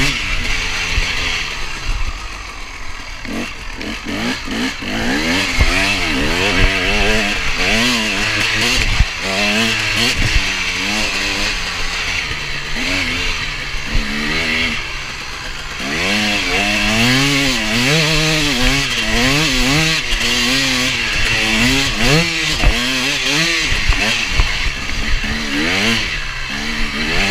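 KTM 250 EXC two-stroke engine revving up and down as the bike is ridden hard around the track, its pitch climbing and falling over and over with throttle and gear changes, easing off briefly twice. Wind rushes over the microphone throughout, with occasional knocks from the bike.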